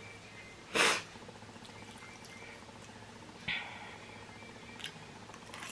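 Eating sounds of someone having noodles: a short, loud sucking noise about a second in, then faint wet mouth sounds with a sharper little sound midway and a few small clicks.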